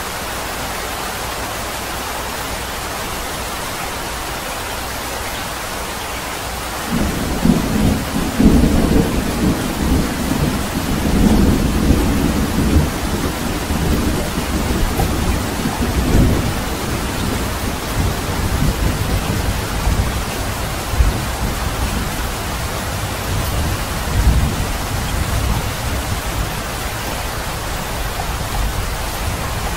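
Steady rain hiss with a roll of thunder that breaks in about seven seconds in, rumbles loudest for several seconds with a few sharper peaks, then slowly fades back under the rain.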